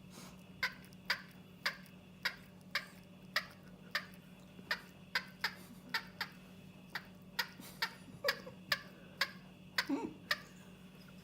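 Short, sharp clicking squeaks from a cooked chicken, repeating about twice a second with a few coming closer together near the end, over a steady low hum.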